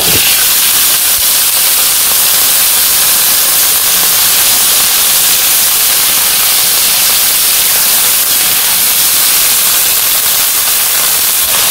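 Wet, freshly washed cut vegetables tipped into hot oil in a wok, setting off a loud, steady frying sizzle as their water hits the oil. It starts suddenly as they land and stays even.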